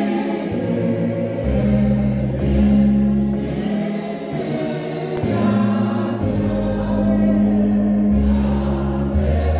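Congregation singing a Xhosa hymn together in a hall, the voices sustained and overlapping, with long held low notes beneath that change every second or two.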